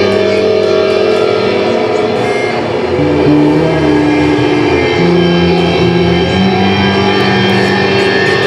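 Improvised live band music: electric guitar and bass notes held in a drone, stepping to new pitches every second or so, over light drum and cymbal playing.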